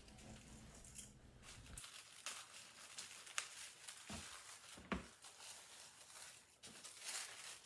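Faint rustling and crinkling of tissue-paper sewing pattern pieces being slid and shuffled across a cutting mat, with a few soft taps.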